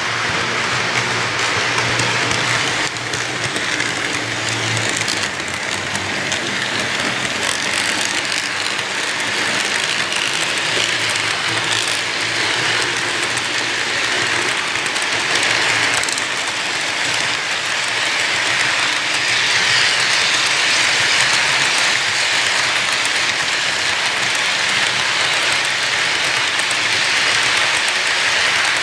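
Model freight train cars rolling along the layout track: a steady rolling noise of the wheels on the rails, a little louder after about nineteen seconds.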